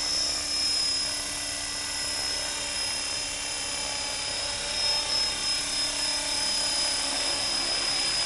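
Align T-REX 450SE V2 electric RC helicopter in flight: its 430XL brushless motor and gear drive give a steady high-pitched whine over the noise of the spinning rotor blades.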